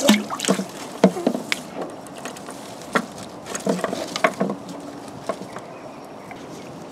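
A magnet on a rope plops into canal water, followed by a scatter of small splashes, drips and gurgles over the next few seconds as it sinks, then dying away.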